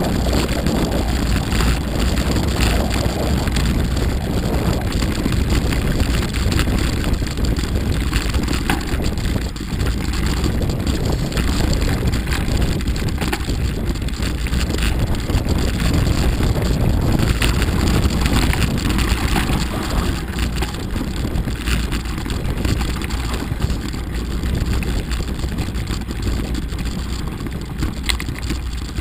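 Steady wind rush on the microphone of a camera riding on a mountain bike descending a snowy track, mixed with rolling tyre noise and frequent small knocks and rattles from bumps.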